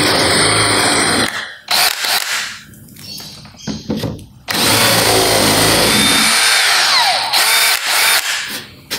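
Stanley SBH201 18 V brushless cordless hammer drill boring a 35 mm Forstner bit into plywood, the motor running smoothly under load. It stops about a second in and gives a few short trigger bursts. It bores steadily again from about four and a half to seven seconds in, then gives a couple of brief bursts before winding down.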